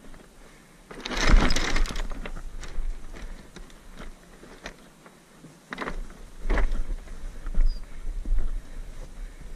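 Boots stepping over loose limestone scree: irregular crunching and clattering of stones underfoot, loudest about a second in and again around six to seven seconds, with a low rumble of wind on the microphone. A small bird chirps briefly near the end.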